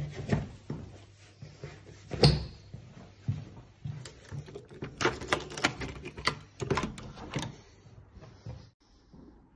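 Irregular knocks and clicks of things being handled, with one sharp knock about two seconds in and a busy run of clicks between about five and seven and a half seconds.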